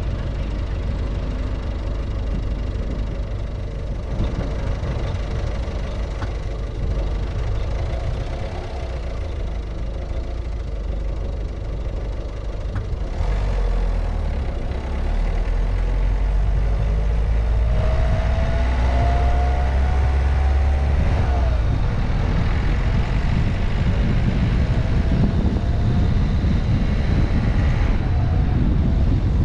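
Car driving through city streets: steady engine and road rumble, growing louder about halfway through, with a faint rising whine from acceleration in the second half.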